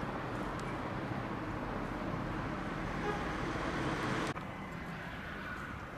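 Steady street ambience with a traffic-like hum. It cuts off abruptly a little over four seconds in, leaving a quieter background.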